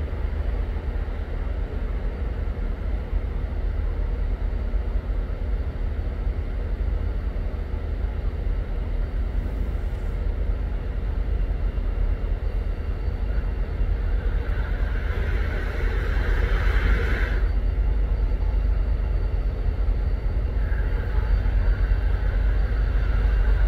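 Train at a railway station: a steady low rumble, with a hiss that swells about fifteen seconds in, cuts off suddenly a couple of seconds later, and starts again near the end.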